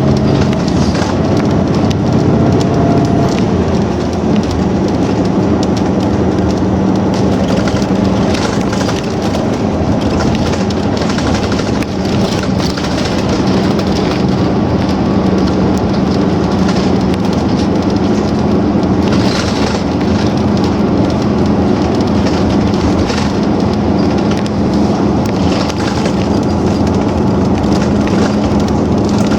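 Bus running along the road, heard from inside the cabin: a steady drone of motor and tyre noise with a low, even hum.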